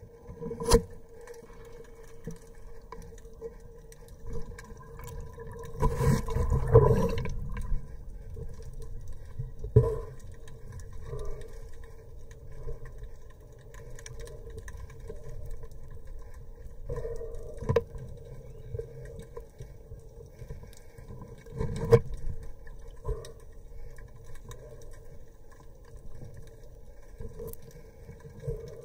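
Underwater ambience: muffled water noise under a steady hum, broken by scattered sharp knocks and a louder rush of water about six to seven seconds in.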